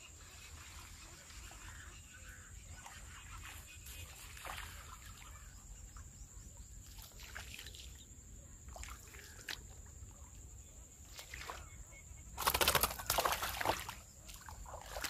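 Water splashing and sloshing about twelve and a half seconds in, louder than anything else, as a small hooked fish is pulled through the shallows and lifted out. Before it, only faint scattered splashes and clicks of a lure being worked.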